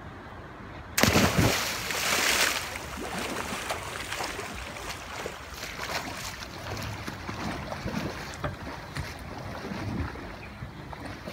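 A person jumping off a sailboat's bow into the sea: a sudden loud splash about a second in, a second burst of splashing just after, then a run of smaller splashes and water slapping as they swim back to the boat's side.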